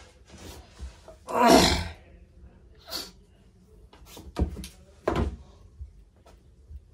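Hands handling fabric and rulers on a cutting table: a loud swishing rustle about a second and a half in, a shorter one a little later, then a few short knocks as a ruler is set down on the table.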